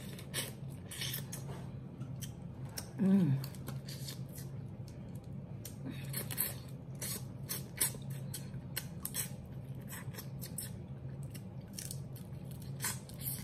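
Crab shells cracking and snapping in quick, irregular clicks as a crab cluster is pulled apart by hand and bitten into, with wet chewing. About three seconds in there is a brief hummed voice sound, the loudest moment.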